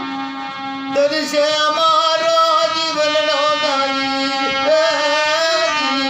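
A voice singing a long, wavering melodic line over a steady instrumental drone. The singing comes in about a second in and stops just before the end, leaving the drone.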